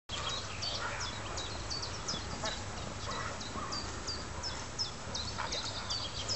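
Small birds chirping repeatedly: short, high chirps several times a second over a steady low rumble.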